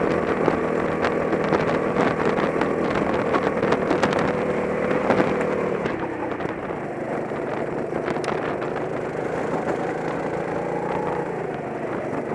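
Go-kart engine running hard, heard from the driver's seat. Its pitch drops about six seconds in as the revs fall, then starts to climb again near the end.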